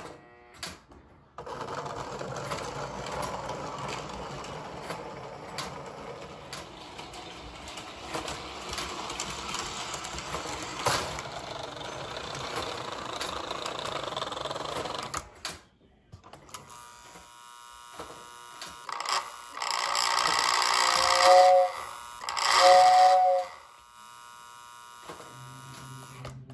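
Lionel 736 Berkshire toy steam locomotive running on three-rail track, a steady mechanical rattle of motor and wheels. Near the end it sounds two two-toned whistle blasts, the loudest sounds.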